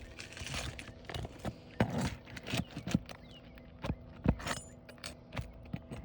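A roof snake, a metal shingle-removal tool, scraping and knocking under roof shingles, with several sharp irregular clacks as it is worked against them.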